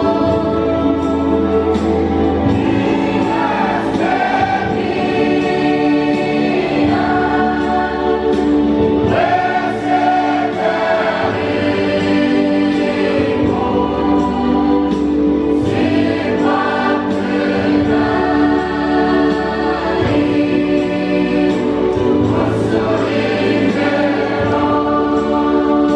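Large mixed church choir of men's and women's voices singing in harmony, holding sustained chords that change every few seconds.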